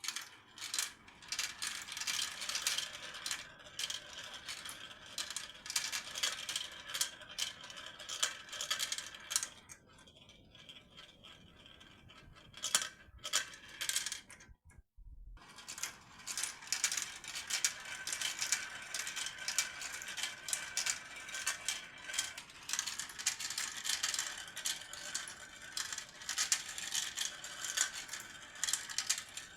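Marbles rolling and dropping through a marble run: a dense, irregular clatter of small hard clicks and rattles, quieter for a few seconds about halfway through, with a brief break just after.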